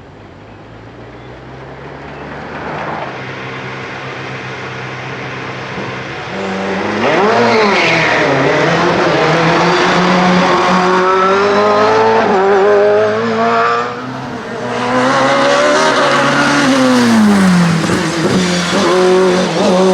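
LobArt LA01 Mugen hillclimb sports-prototype racing engine at full throttle, coming closer and growing louder over the first several seconds, its note climbing through the gears. The revs drop briefly about fourteen seconds in, then climb again, and fall away a few seconds before the end.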